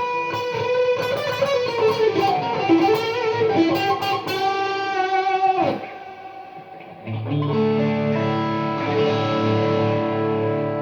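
Xotic XSC-1 electric guitar played clean: a single-note lead line with bends and vibrato, then a chord struck about seven seconds in and left ringing.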